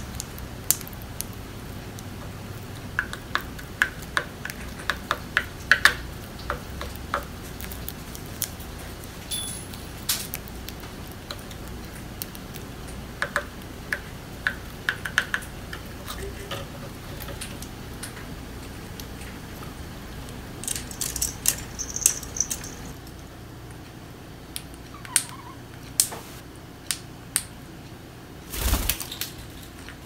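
Budgerigar pecking and husking seeds in its feeding dish: irregular sharp ticks and taps, sometimes in quick runs. A short burst of noise comes near the end.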